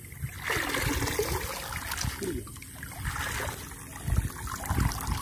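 A cast net being hauled out of the water by hand, water splashing and dripping from the mesh in two spells. A few low thumps near the end.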